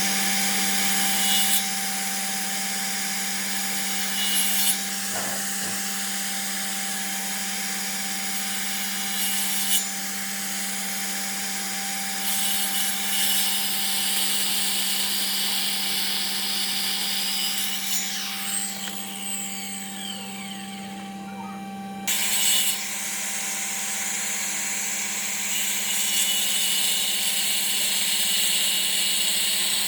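A power tool running steadily and working wood, its motor humming under a rasping hiss that changes abruptly several times, about two, five, ten, twelve and twenty-two seconds in.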